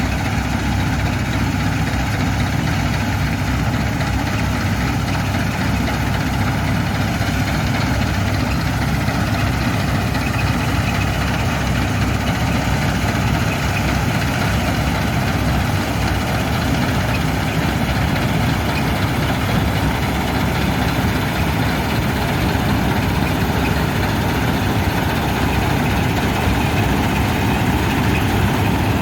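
Combine harvester running steadily at work: a constant low engine drone with machinery noise, unchanging throughout.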